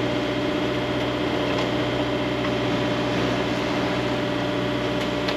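Sailboat's inboard engine running steadily, a constant drone under a hiss of wind and water, as the boat pushes against a strong current.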